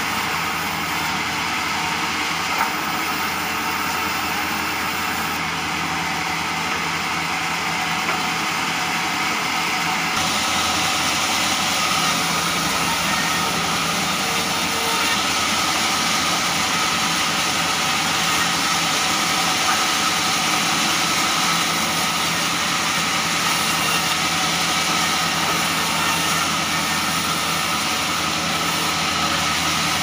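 Sawmill band saw running steadily as jati belanda boards are ripped through it, a continuous machine drone with the cutting noise. It grows a little louder and brighter about ten seconds in.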